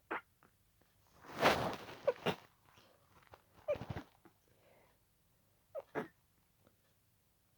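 A person sneezing over and over in a rapid fit: several short, sharp sneezes with quick breaths between them. The loudest and longest comes about a second and a half in.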